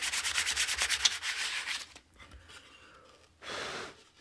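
Sandpaper rubbed by hand in rapid back-and-forth strokes over a carved pine board for about two seconds, then stopping. A brief, softer rush of noise follows near the end.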